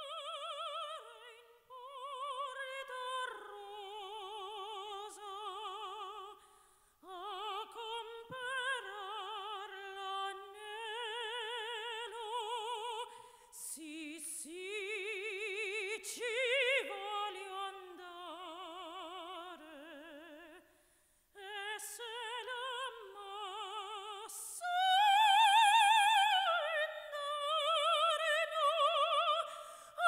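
A soprano singing solo in operatic style with a wide vibrato and no accompaniment heard. Her phrases break off twice for a moment, and the loudest, highest phrase comes near the end.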